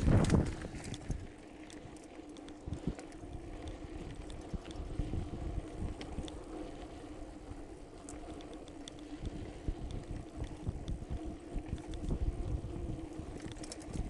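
Mountain bike descending a rough dirt and gravel track, heard from an on-board camera: wind rush on the microphone with constant rattling and knocks from the bumps. A heavy jolt comes right at the start.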